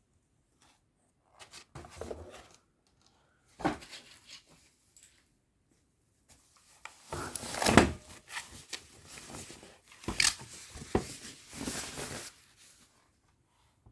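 Keys of an Ajazz AK871 mechanical keyboard with blue switches clicking as it is typed on, in short bursts about 2 and 4 seconds in, then a longer run of rapid clicks from about 7 to 12 seconds in.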